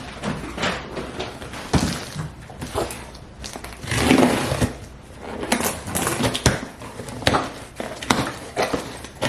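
Packaging rustling and crinkling as parcels are opened and items handled, with scattered clicks and knocks; the loudest crinkling comes about four seconds in.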